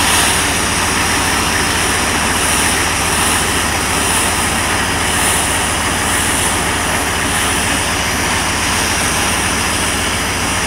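Gas torch burning with a steady hissing roar as it heats bare truck sheet metal. Under it, a 6.2 diesel engine idles steadily.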